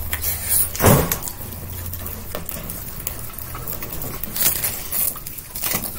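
Wire grid panels of a guinea pig cage being handled and fitted together: a few sharp clicks and light metallic rattles, the loudest about a second in and another at about four and a half seconds.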